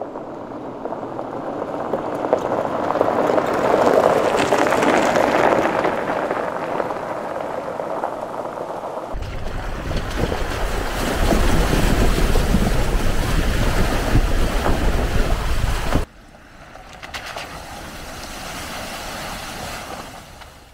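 Lexus LX470 SUV driving on a gravel road: tyres crunching on gravel as it comes up and passes, loudest about four seconds in. Then a heavy low rumble and gravel noise heard close to a wheel, and near the end a quieter wash as it rolls through shallow water on the track.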